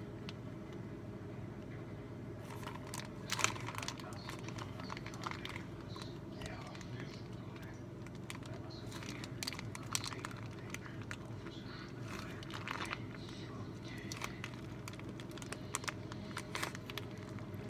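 A plastic bag crinkling as it is squeezed to pipe pudding into plastic popsicle molds, with irregular crackles and rustles starting a couple of seconds in, over a steady low hum.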